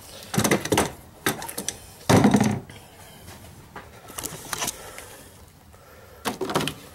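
Hand tools and engine parts knocking and clattering in short, irregular bursts, the loudest about two seconds in, as the serpentine belt is worked off the alternator pulleys.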